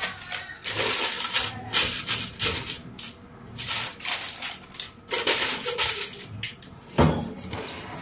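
Paper air-fryer liner crinkling and rustling in irregular bursts as it is handled and set into the air fryer basket, with a single low thump about seven seconds in.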